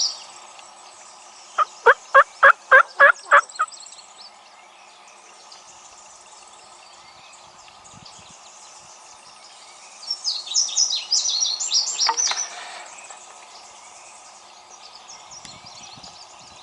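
A wild turkey's yelps: a run of about seven quick, evenly spaced notes, each breaking from low to higher, in a short series. Songbirds sing in the background, with one burst of song about ten seconds in.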